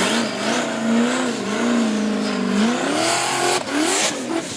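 Car engine sound revving over a steady hiss. The pitch wavers, then rises in a few short revs near the end.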